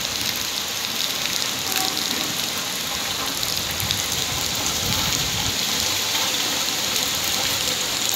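Heavy rain falling steadily, with a thick stream of rainwater pouring from a drain outlet close by.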